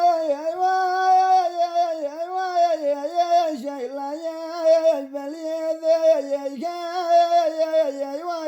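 A solo voice singing a Mehri folk song unaccompanied, with long held notes and ornamented slides between them.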